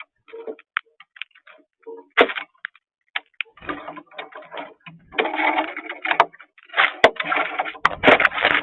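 A flock of cowbirds calling: scattered clicks and short chirps that thicken into a dense, busy chatter from about halfway in.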